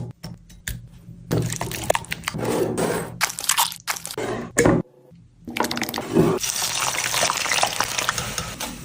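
Kitchen food-preparation sounds: wet squishing and mixing with clicks and knocks, in short clips that cut off suddenly, the longest gap about five seconds in.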